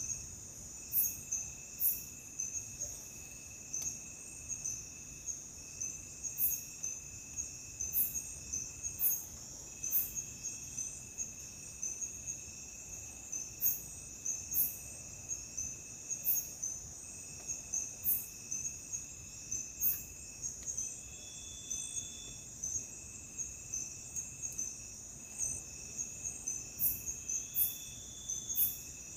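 Night insects calling in forest: a constant high-pitched pulsing trill with a fainter steady lower whine beneath it, and short sharp high chirps every second or two.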